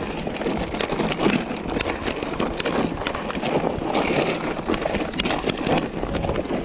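Mountain bike tyres crunching over loose stones on a rough rocky track, with many irregular clicks and rattles and a low wind rumble on the microphone.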